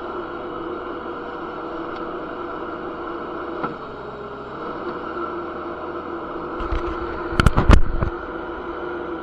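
Kubota SCL1000 stand-on compact skid steer running steadily. A cluster of loud knocks and clanks comes about seven to eight seconds in.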